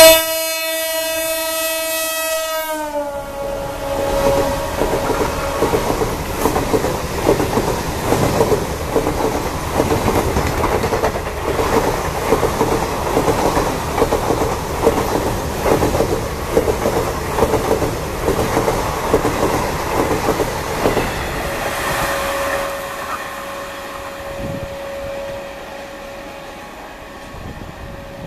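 Horn of a WDM-3D diesel locomotive blaring as the train passes, its pitch dropping sharply about three seconds in. Then the express's coaches clatter over the rail joints in a long, rapid clickety-clack, which fades away near the end.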